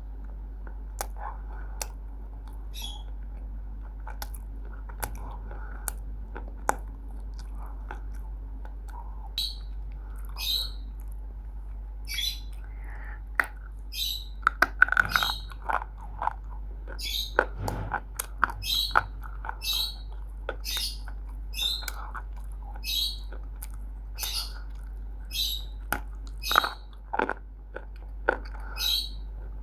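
Close-up crunching and chewing of roasted multani mitti (fuller's earth clay), with crisp crunches about once a second over a low steady hum.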